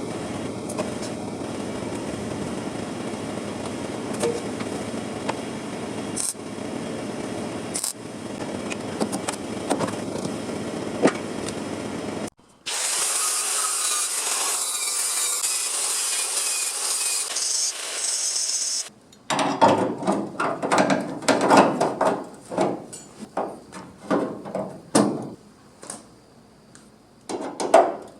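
Sheet-steel fabrication work with workshop tools. A power tool runs steadily for about twelve seconds and stops abruptly. A higher-pitched hissing tool then runs for about six seconds, followed by a series of irregular knocks and scrapes on the metal.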